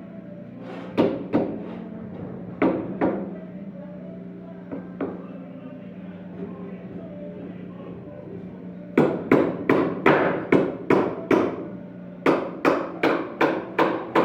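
Hammer blows, likely on nails or wood: a few single strikes, then from about nine seconds in two quick runs of about three strikes a second, each ringing out briefly.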